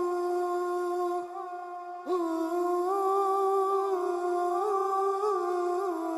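A slow hummed melody in long held notes with small steps in pitch, dropping away about a second in and coming back with a short upward slide about two seconds in.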